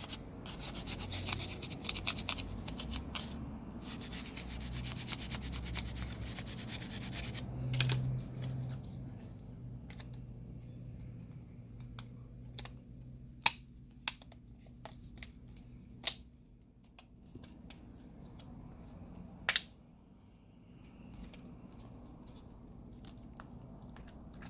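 Plastic rubbing and scraping as a smartphone's inner plastic cover is fitted over the motherboard, dense and fast for the first several seconds, then quieter handling with a few separate sharp clicks.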